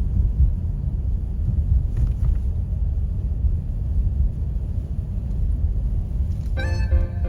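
Car driving through snow, heard from inside: a steady low road and engine rumble. Background music with clear notes comes in near the end.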